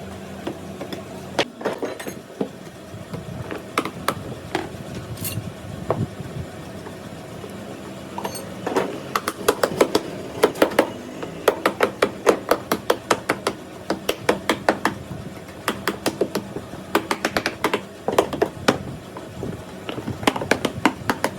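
Repeated sharp taps and knocks of a hard object, scattered at first and then coming quickly, a few a second, through the second half.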